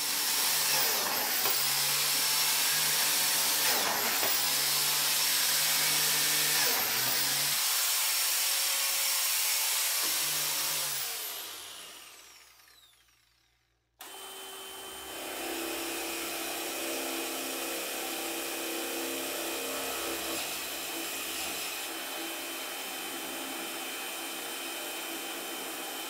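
A corded biscuit joiner runs at full speed. Its pitch sags briefly three times as the spinning blade is plunged into the edge of a plywood panel to cut biscuit slots. It then spins down to a stop. After a short gap, a quieter, different steady hum begins abruptly.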